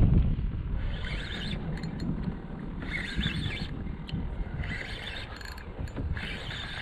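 Spinning reel being cranked in short bursts about every one and a half to two seconds as a hooked fish is reeled in, over a low rumble of wind and water.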